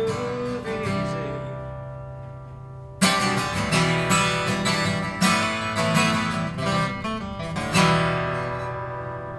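Steel-string acoustic guitar being strummed. A chord rings and fades, then a sudden run of strums starts about three seconds in. A final chord is left to ring out and fade, closing the song.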